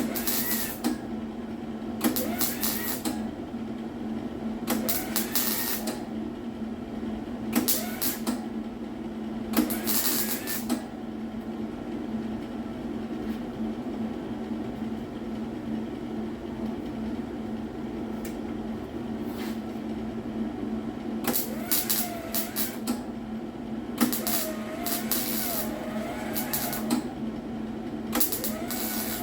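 A welder laying short stitch welds on the sheet-metal quarter panel: about nine crackling bursts, each about a second long, with pauses of a few seconds between them, over a steady low hum.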